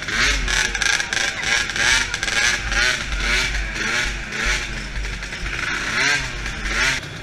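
DRR 50cc youth quad's engine running close under the camera, its pitch rising and falling with the throttle, over a steady hiss. The sound drops off suddenly near the end.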